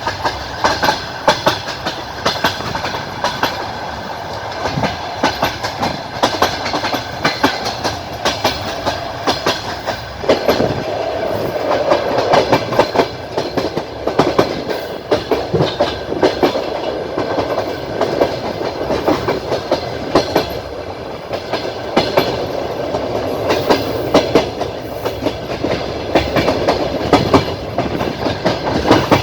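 Passenger train wheels clacking over rail joints, heard from inside the carriage: repeated sharp clacks over a steady rolling rumble. The rumble grows louder about ten seconds in.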